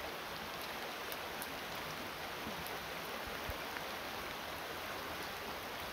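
Steady rushing of a fast creek running over rocky riffles.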